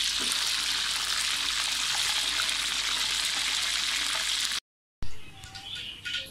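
Chicken koftas deep-frying in hot oil, a steady loud sizzle as they are lifted out with a wire skimmer; the cook puts the noise down to water from the koftas meeting the oil. The sizzle cuts off about four and a half seconds in, followed by a few faint clicks.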